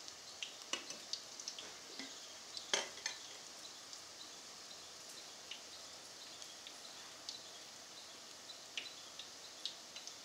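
Dal pakoras deep-frying in a kadhai of hot oil: a steady, faint sizzle with scattered crackles and pops. There are a few sharper clicks of the steel mesh skimmer against the pan in the first three seconds.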